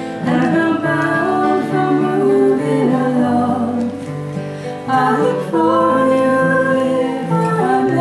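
A folk song performed live: two acoustic guitars strummed, with women singing.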